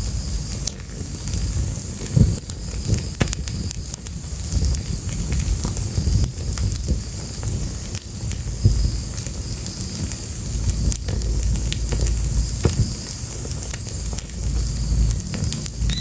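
Fire crackling, with scattered sharp pops over a steady low rumble.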